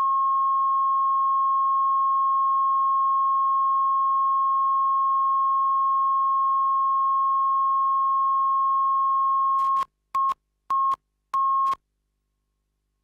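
Steady 1 kHz line-up tone on a broadcast videotape. It cuts off just under ten seconds in, and three short countdown beeps at the same pitch follow, a little over half a second apart, the last one slightly longer.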